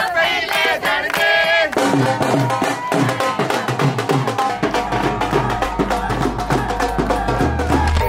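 Music: a vocal phrase, then a fast, steady drum beat comes in about two seconds in, with a deep bass note joining about halfway through.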